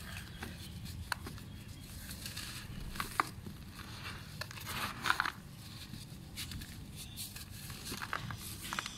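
Dry red dirt blocks crushed and crumbled in bare hands, with gritty crunches, scattered crackling grains and the soft hiss of powdery soil pouring down. The loudest crunch comes about five seconds in.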